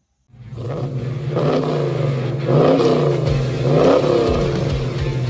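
Car engine running with a deep, steady hum and being revved up and down a couple of times. It fades in about a third of a second in.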